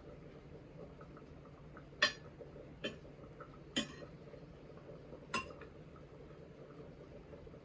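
Kitchen utensil clinking against cookware: four sharp clinks spread over a few seconds, the first the loudest.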